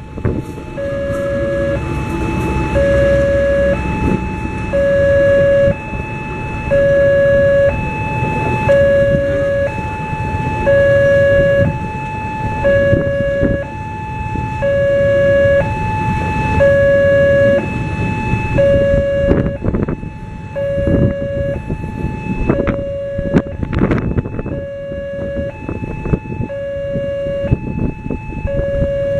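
Railway level-crossing warning alarm sounding from the crossing post's loudspeaker: an electronic two-tone chime, a high and a low note alternating steadily. Under it a diesel-hauled passenger train rumbles past, with sharp wheel clicks over the rail joints from about two-thirds of the way in.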